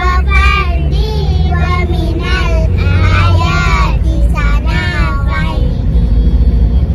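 Children's voices singing in phrases that glide up and down, over the steady low rumble of the vehicle they ride in.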